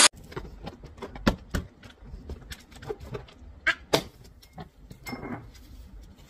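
Inflated rubber balloon being handled, with hands and a wooden skewer rubbing and tapping its skin. Soft, scattered taps and rubbing sounds, a few sharper than the rest, and no pop.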